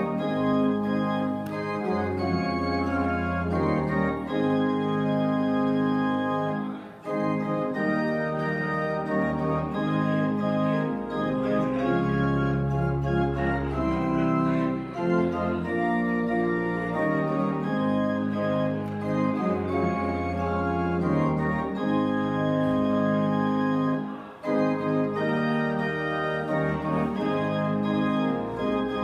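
Church organ playing the postlude: full held chords that change every second or two over deep pedal bass notes, with two brief breaks between phrases.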